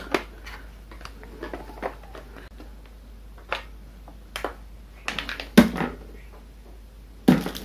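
Scattered small plastic clicks and taps as a screwdriver pries at the visor pivot mechanism of a Steelbird SBH-17 helmet, with two louder knocks in the second half.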